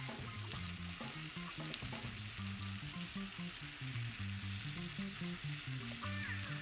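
Halved figs frying in butter and honey in a nonstick skillet, sizzling steadily. A low bass line of background music runs underneath.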